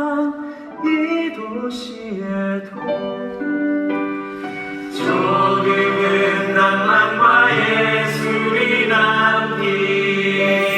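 Musical theatre cast singing a number with accompaniment, held notes in harmony. The sound grows fuller and louder about five seconds in.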